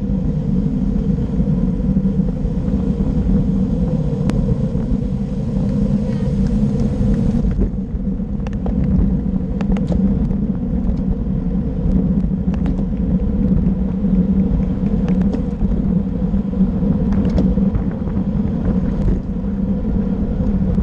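Wind buffeting a bike-mounted action camera's microphone, with road and tyre rumble from a road bike riding at about 20 to 30 mph in a group. It is a steady low rumble, the upper hiss eases off about seven seconds in, and scattered sharp clicks follow.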